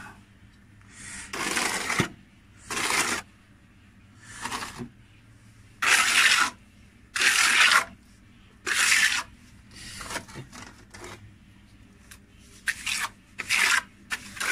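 Steel trowel scraping across rough concrete as it spreads ready-mix cement plaster, in about ten separate strokes, each under a second, with short pauses between them.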